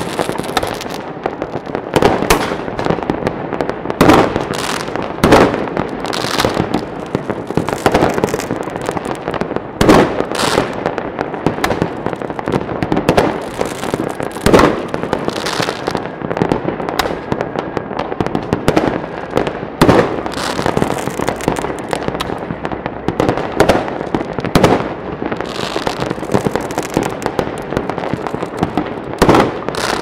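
Fireworks going off: a continuous dense crackle with loud bangs every second or two, many of them overlapping.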